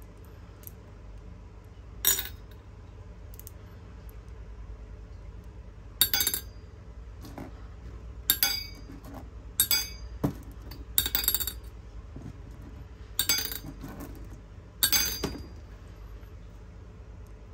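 Hard candies clinking against glass: about eight separate, sharp, ringing clinks, spaced irregularly one to four seconds apart.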